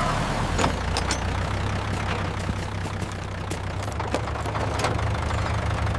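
Tractor engine idling steadily after a repair, a low even rumble with scattered light ticks.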